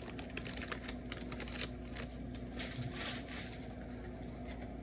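Paper trading cards and a pack wrapper being handled: an irregular run of light clicks and rustles, like typing, as a new pack is opened and its cards are shuffled through.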